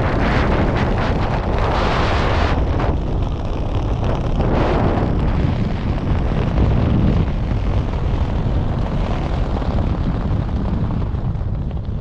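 Wind buffeting the camera's microphone during a parachute canopy descent: a loud, steady rushing rumble that swells and eases, starting to die away near the end as the jumper lands.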